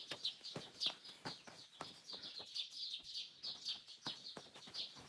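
Small birds chirping rapidly and without a break, several calls a second, high-pitched. Scattered sharp knocks sound at irregular moments.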